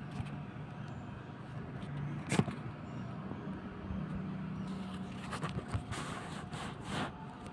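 Steady low hum of an engine running, with one sharp click about two and a half seconds in and a few fainter ticks near the end.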